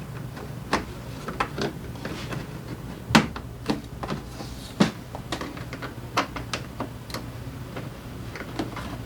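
Irregular metallic clicks and knocks of hand tools and parts being handled during scooter drivetrain work, the loudest about three and five seconds in, over a low steady hum.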